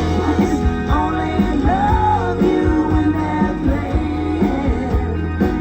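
Music: a song with a singing voice over bass and a steady beat.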